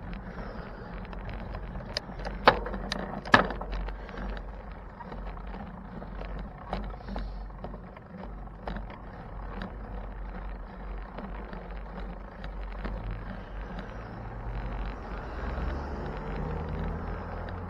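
Street noise heard from a moving bicycle: a steady low rumble with frequent small rattles and clicks, two sharp clacks about two and a half and three and a half seconds in. A vehicle's engine hum comes in toward the end and rises.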